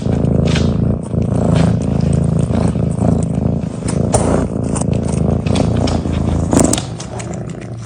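Domestic cat purring loudly and steadily, with scattered small clicks and rustles.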